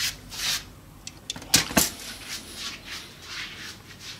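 Handling noise from a steel tape measure worked against a speaker cabinet: short rustles and scrapes, with two sharp clacks about one and a half seconds in.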